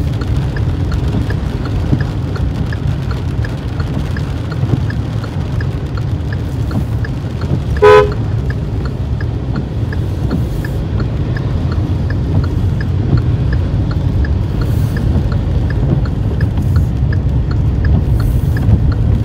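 Steady road and engine noise inside a moving car, with a light regular ticking about three times a second. About eight seconds in, a car horn gives one short toot, the loudest sound here.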